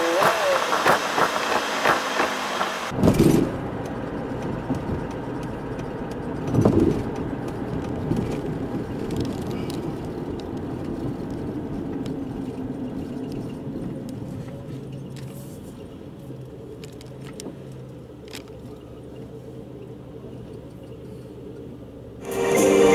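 Car engine and road noise heard inside the cabin while driving in traffic, opening with a few seconds of sped-up, hissy road noise. Two short thumps come about three and seven seconds in. From the middle on the noise drops to a lower, steady hum as the car slows and waits in traffic. Music comes in at the very end.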